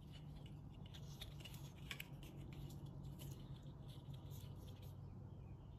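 Faint crinkling and small clicks of Blue Monster PTFE thread-seal tape being pulled off its roll and twisted by hand, over a low steady hum.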